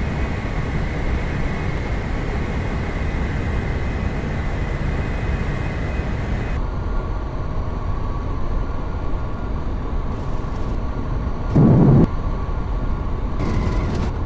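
Steady rumble of an airliner's engines with a faint high whine; the sound changes abruptly about six and a half seconds in, and a brief loud low blast comes near the end.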